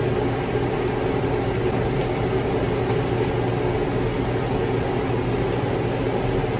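Steady machine hum from a running motor: a low drone with several fixed tones over an even rushing noise, unchanging throughout.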